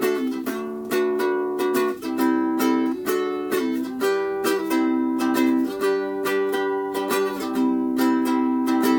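Enya soprano ukulele strung with Fremont Blackline low-G strings, strummed through a song: a steady run of chord strums, each chord ringing on and changing every second or two.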